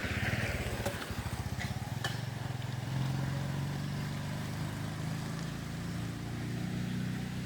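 A small engine running, with a rapid low pulsing for the first few seconds that settles into a steady hum.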